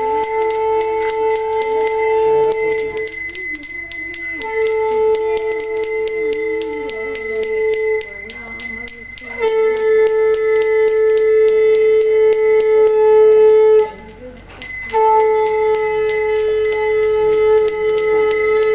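A brass puja hand bell rung rapidly and without a break through the aarti, with a conch blown over it in four long, steady blasts separated by short pauses for breath.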